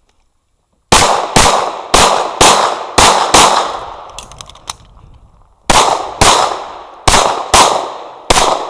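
Pistol shots fired in quick pairs about half a second apart, each with a short echoing tail: three pairs in the first few seconds, a pause of about two seconds, then two more pairs and a fifth shot near the end.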